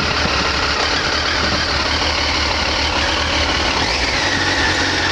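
Triumph T595's 955 cc three-cylinder engine idling steadily.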